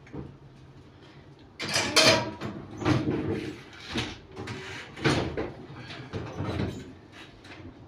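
Household things being handled and moved: an irregular run of knocks, scrapes and rustles that starts about a second and a half in.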